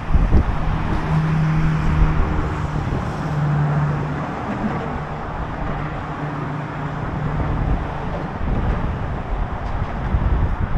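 Wind buffeting the microphone over steady road-traffic noise. A low vehicle engine hum comes and goes in the first few seconds.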